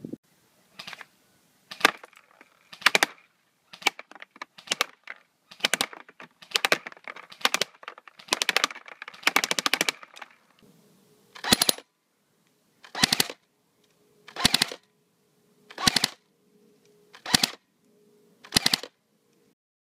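G&G F2000 airsoft electric rifle (AEG) firing: its gearbox cycling in a string of quick shots and short bursts, about a dozen in the first half, then six evenly spaced short bursts about a second and a half apart near the end.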